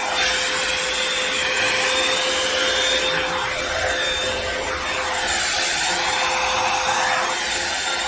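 Revlon One-Step hot-air brush running steadily: a rush of blown air over a steady motor whine.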